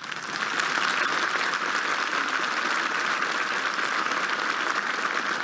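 A crowd applauding after a line of a speech: dense clapping that swells up in the first second, then holds steady.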